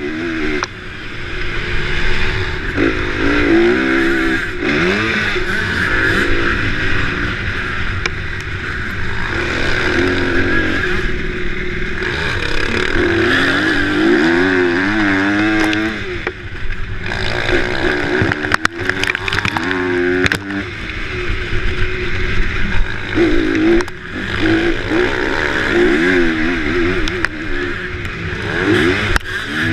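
Motocross dirt bike engines revving hard on a dirt track, the pitch climbing and dropping again and again as the riders open and close the throttle and shift gears.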